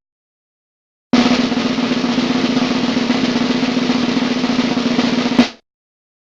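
Snare drum roll sound effect. It starts about a second in, rattles evenly for about four seconds and ends on a single sharp hit.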